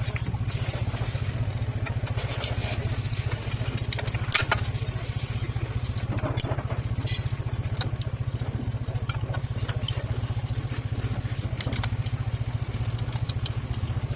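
A motorcycle engine idling steadily, with scattered metallic clicks and clatter from tools being worked.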